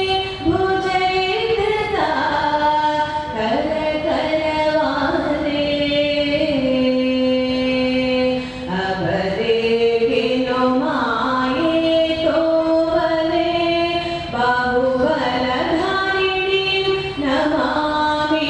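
Singing: a melody of long held notes that step and slide from pitch to pitch without a break.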